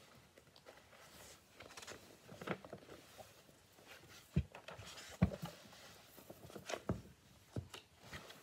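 Paperback book being handled and its pages turned, with paper rustling and several knocks as the book is moved, the strongest four in the second half.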